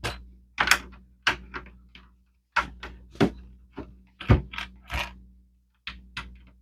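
Small plastic Lego pieces clicking and knocking as they are handled and pressed into place: a dozen or so sharp clicks at an irregular pace.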